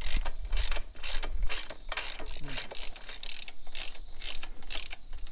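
Hand ratchet clicking in quick repeated strokes, about two or three a second, as it backs off the rear chain adjuster bolts on a motorcycle swingarm.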